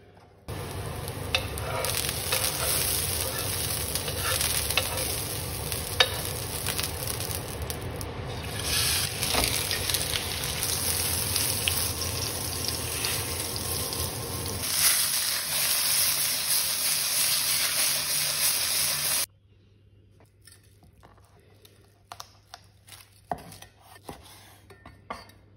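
Two T-bone steaks sizzling loudly in a hot frying pan, with a few sharp metallic clicks. About 19 seconds in the sizzle cuts off suddenly, and a knife slicing the cooked steak on a wooden cutting board gives faint scattered clicks and taps.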